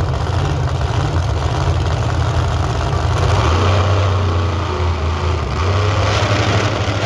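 Large car engine idling steadily, its low hum shifting slightly in pitch about three and a half seconds in.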